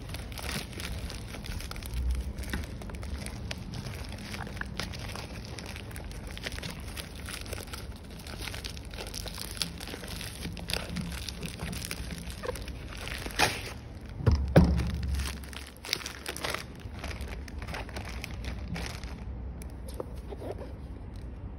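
Plastic packaging wrap crinkling and crackling as hands pull it off a parcel, with a louder stretch of crackling and handling about two-thirds of the way through, then quieter handling near the end.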